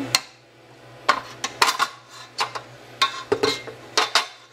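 A metal utensil clinking and scraping against a KitchenAid stand mixer's stainless steel bowl while batter is scraped down, with about ten sharp, irregular knocks.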